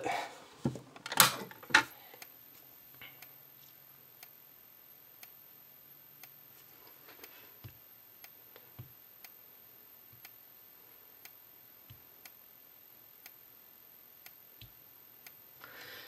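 Edwards 276B single-action fire alarm pull station pulled down with a sharp plastic clack about a second in. Then the Edwards Integrity 15/75 candela strobe flashes with a faint tick about once a second, over a thin steady high whine from its charging circuit.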